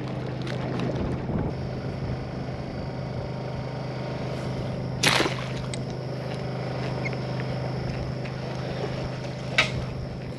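A boat's motor running with a steady hum. There is one sharp snap about five seconds in and a smaller one near the end.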